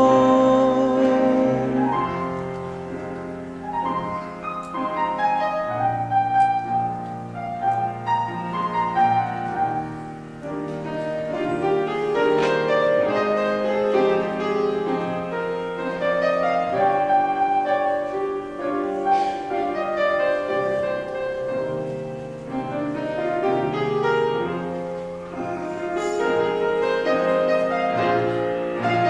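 Slow piano accompaniment playing an instrumental interlude between sung verses, with held chords and a moving melody line.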